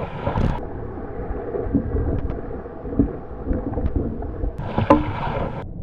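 Paddles stroking and water sloshing around an inflatable canoe inside a sea-cave tunnel, with a few short, sharp knocks.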